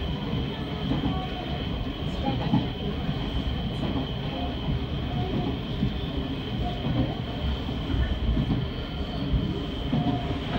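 Electric commuter train running, heard from inside the driver's cab: a steady rumble of wheels on rail with a constant high whine.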